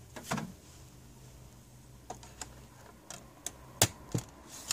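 Light plastic clicks and taps as a DVD is handled and pressed down onto the spindle of a laptop's open DVD drive tray, the sharpest click coming a little under four seconds in.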